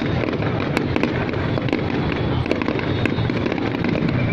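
Fireworks display going off: a continuous low rumble of bursts with many sharp cracks scattered through it.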